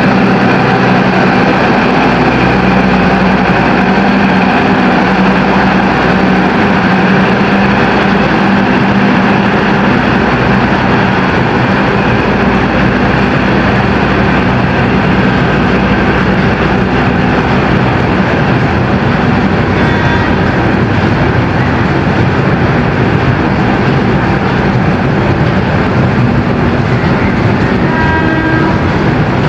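Diesel-electric locomotive hauling a passenger train as it pulls away, its engine running steadily and loudly under load.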